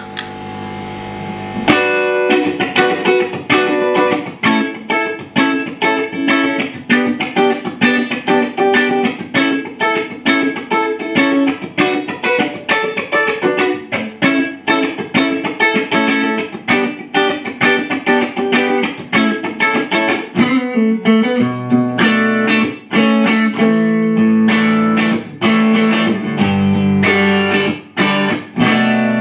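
Macmull Stinger electric guitar played through a Strymon OB.1 optical compressor, switched on, into a Marshall JCM 2000 DSL amp. After a short pause, a steady run of picked notes and chords starts about two seconds in and moves to lower notes a little over twenty seconds in.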